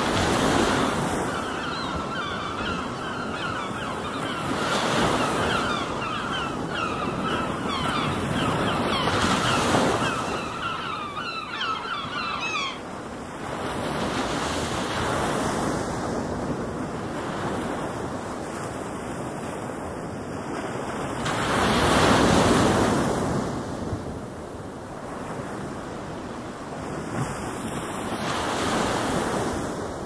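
Ocean surf: waves breaking and washing in steadily, with louder surges every several seconds, the biggest about two-thirds of the way through. A run of short, high, quick notes sits above the surf for the first dozen seconds.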